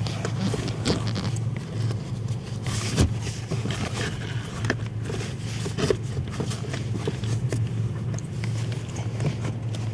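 Cabin air filter being fed slowly into its plastic housing, making scattered light scrapes and clicks, over a steady low hum.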